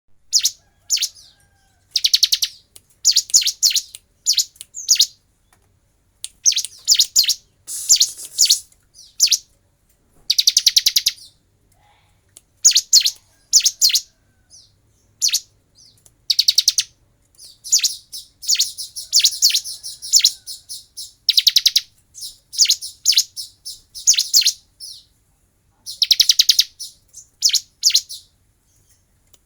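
Bar-winged prinia (prenjak jali) singing: high-pitched bursts of rapid, rattling notes, each under a second or so long, repeated again and again with short pauses between them.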